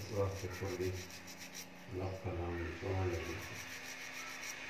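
Fingertips rubbing and picking through small grains in a tray, a dry scraping rustle. A low voice murmurs twice over it, in the first second and again from about two to three and a half seconds in.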